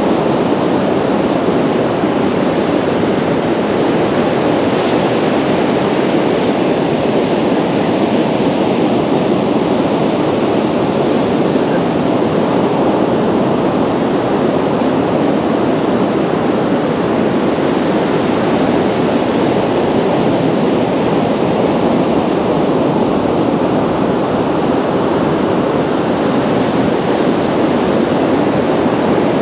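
Steady rush of sea surf on a beach, mixed with wind on the microphone, at an even level throughout.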